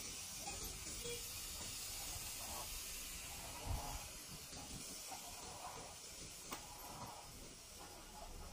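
Faint, steady outdoor hiss, with a single low thump about three and a half seconds in.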